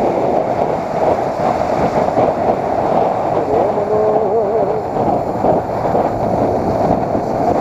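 Motorcycle engine running while riding along at a steady pace, with wind rushing over the microphone.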